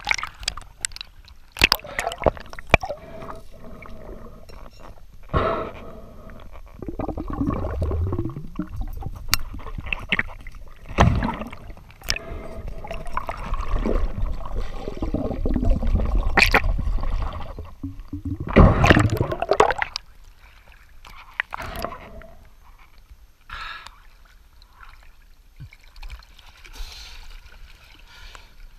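Water gurgling and sloshing around a camera held at and under the sea surface, with scattered sharp clicks and knocks. Several louder rushes of water swell and fade, the strongest about two-thirds of the way through, after which it goes quieter.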